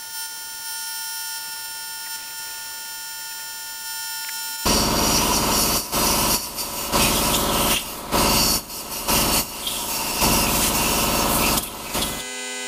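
Air die grinder with a metal-cutting bit whining steadily as it ports the exhaust ports of a GM 317 cylinder head. About four and a half seconds in, it stops and compressed air from a blow gun hisses in a string of short blasts, clearing grinding debris from the head. Near the end a lower steady hum sets in: the shop air compressor running.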